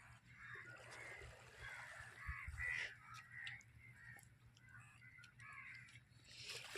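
Crows cawing repeatedly, faint, in short arched calls.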